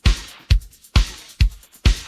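Isolated rock drum part playing a steady beat of about two strokes a second: a low kick on every beat, with a brighter snare-like hit on every other beat.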